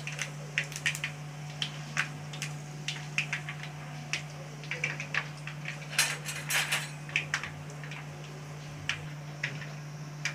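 Mustard seeds popping in hot oil in an aluminium kadai with fenugreek and cumin, the tempering stage: irregular sharp pops and crackles, some seeds ticking against the pan's metal, with a dense flurry a little past the middle.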